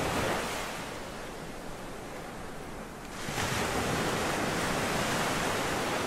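Logo sound effect: a wash of noise like breaking surf, surging at the start, easing off, then swelling again about three seconds in and holding.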